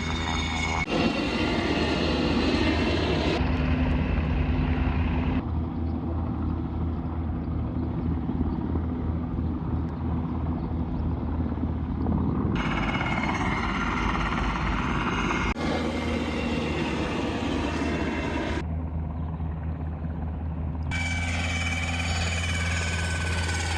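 Firefighting helicopter carrying a water bucket, its rotor chop and engine drone steady and loud throughout, broken by several abrupt cuts.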